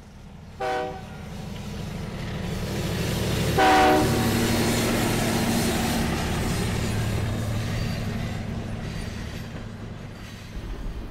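Diesel locomotive horn sounding two short blasts about three seconds apart, the second louder and longer, over a steady locomotive engine rumble that builds and then slowly fades.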